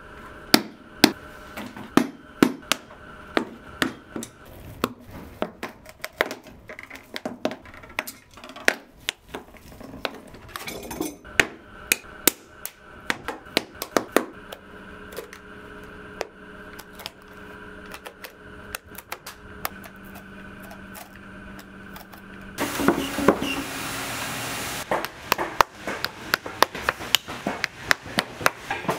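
Boot-repair hand tools on a leather work boot: repeated sharp clicks and knocks as the old nailed sole is pried and pulled off, over a faint steady hum. About three-quarters of the way through comes a couple of seconds of continuous machine noise, then a quick run of hammer taps.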